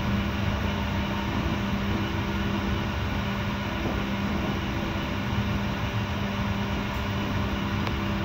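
Steady running noise of a moving passenger train heard from inside the coach, with a constant low hum underneath.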